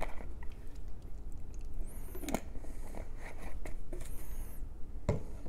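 Scattered light clicks and crinkling from thin aluminium skin and tape being handled as the rudder's leading edge is rolled around a pipe, over a steady low hum. A few faint high chirps rise and fall near the middle.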